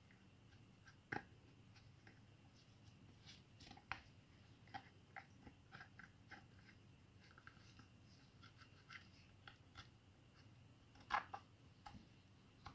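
Near silence with faint, scattered clicks and small knocks, a few a second, the loudest about a second in and a cluster just before the end.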